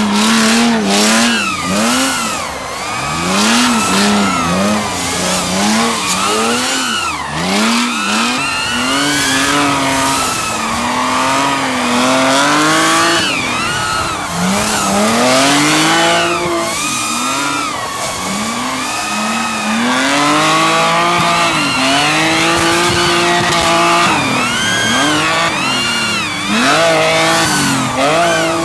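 Drift car engines revving up and down, the pitch rising and falling every second or two, with tyres squealing as the cars slide.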